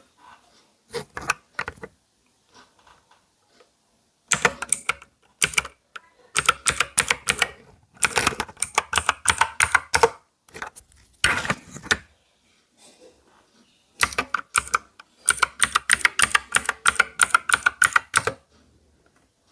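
ANT Esports MK3400 Pro V3 mechanical keyboard being typed on fast, its keys clacking in several quick runs of keystrokes with short pauses between them, as a demonstration of its typing sound.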